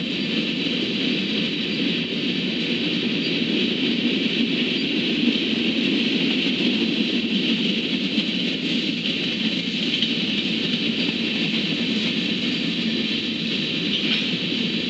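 Steady rumble and hiss of a long freight train's covered hopper cars rolling past, steel wheels running on the rails with no change in pace.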